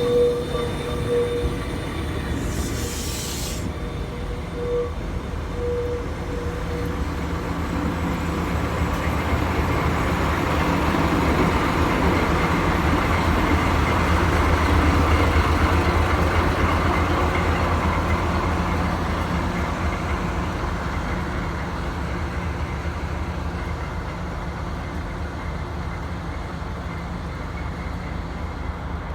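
Diesel shunting locomotive running past slowly with two rail cars in tow: a deep engine drone mixed with wheel and rail noise that builds to its loudest about halfway through, then eases off. A short hiss comes about three seconds in, and a few brief squeals sound in the first seconds.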